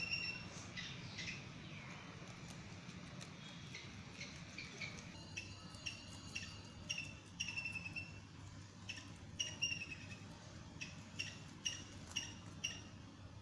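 Rabbits chewing cauliflower leaves, with soft crisp clicks of the leaves being bitten. Short, high, slightly falling bird chirps repeat irregularly over them.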